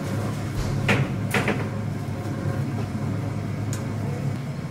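Metal clacks from a worker handling a commercial chicken rotisserie oven: two sharp knocks about a second in and a lighter click near the end, over a steady low hum.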